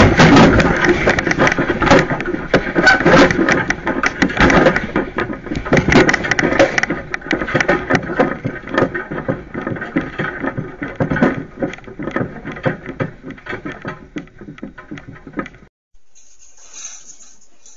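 A garage and its contents rattling and clattering in strong earthquake shaking: loud at first, then dying away over about fifteen seconds until it cuts off near the end, leaving only a faint hiss.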